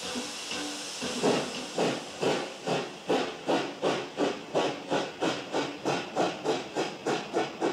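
Steam locomotive blowing off steam, then starting away: exhaust beats begin about a second in and quicken steadily, to about three a second near the end.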